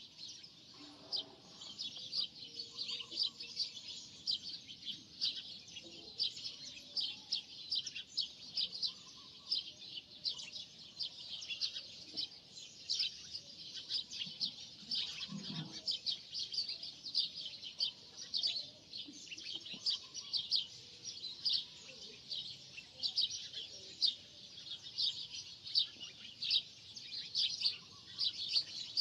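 Birds chirping: a dense, continuous run of short, high chirps, several a second, with no pause.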